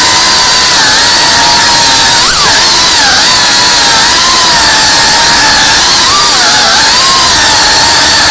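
FPV quadcopter's electric motors and propellers whining loudly, heard through the drone's onboard camera. The pitch wavers and briefly jumps and dips several times as the throttle changes.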